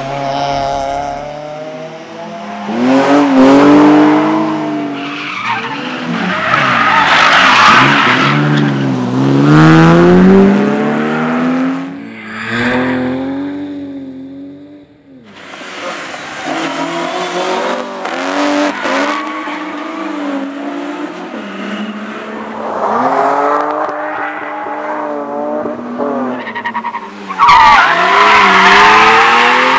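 BMW E30 325i rally cars' straight-six engines revving hard and changing gear as they pass one after another, the engine note rising and falling in pitch. The sound dies away about halfway through before the next car arrives, and another loud pass comes near the end.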